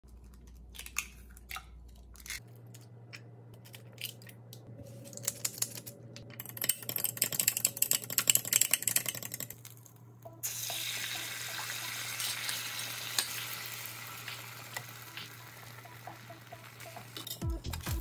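Eggs beaten quickly in a glass measuring cup, a dense run of clicking, after a few scattered taps. About ten seconds in, the beaten egg is poured into a hot rectangular stainless egg pan and sizzles steadily, slowly easing off.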